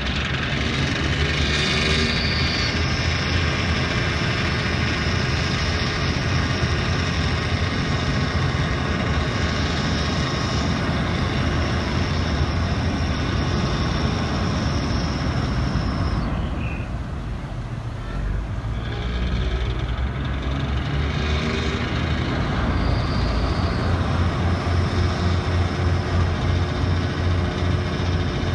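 River ferry's engines running with a low, steady throb as its propellers churn the water. The sound dips briefly about two thirds of the way through, then comes back with a stronger pulsing throb near the end.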